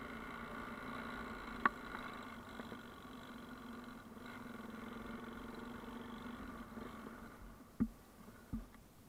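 Motorcycle engine running at a steady pace on a gravel climb, easing off near the end as the bike slows. There is a sharp knock about a second and a half in and a couple of dull thumps near the end.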